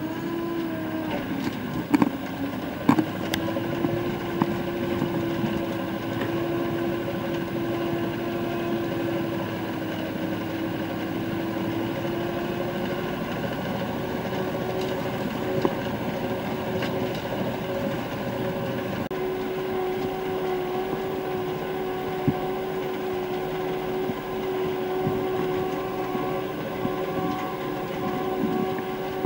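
Erkunt Nimet 70e tractor's diesel engine running steadily under load while pulling a seedbed cultivator, with a few sharp clanks about two and three seconds in.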